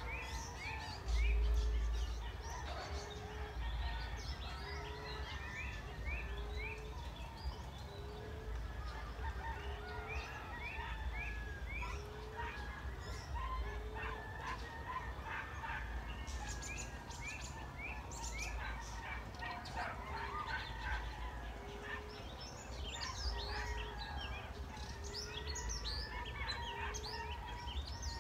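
Emerald dove cooing: a low, soft coo repeated steadily about every second and a quarter, stopping near the end, with other small birds chirping over it. A low rumble at the start.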